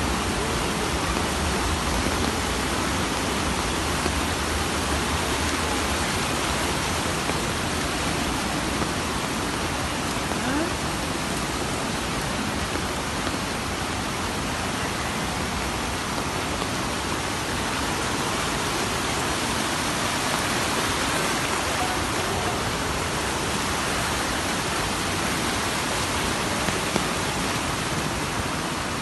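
Muddy floodwater rushing across a road in a steady, unbroken wash of water noise.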